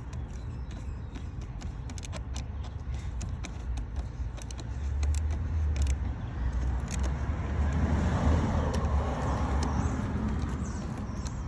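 Scattered light clicks and ticks of hand work tightening the air intake duct clamps, over a steady low rumble that swells for a few seconds past the middle.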